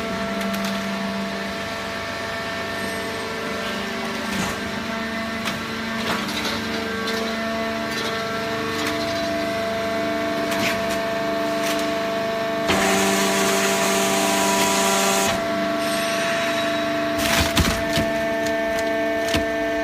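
Hydraulic paper baler running: a steady machine hum with scattered clicks and knocks. A burst of hiss comes just past the middle and lasts a couple of seconds, and a few louder knocks follow near the end.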